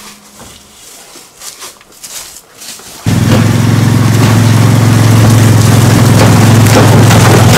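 An engine cuts in suddenly about three seconds in and runs steadily and loudly at an even speed.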